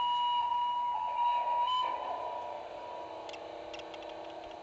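Model electric locomotive's Massoth sound decoder playing its horn through the loco's small speaker: a single high steady tone that stops about two seconds in. A quieter steady electric-locomotive running hum follows, with a few faint clicks near the end.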